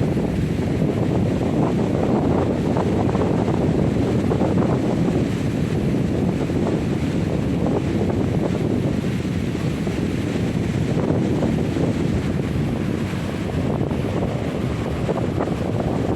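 Strong gusting wind buffeting the microphone as a steady low rumble, with heavy surf breaking on a beach underneath.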